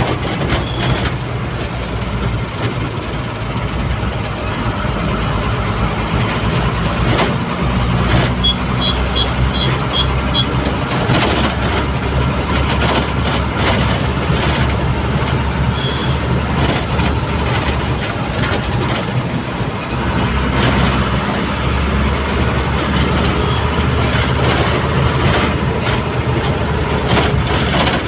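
Vehicle engine and road noise heard from inside the cab while driving: a steady low engine drone with road noise and frequent small knocks and rattles. A quick run of five short high beeps comes about nine seconds in.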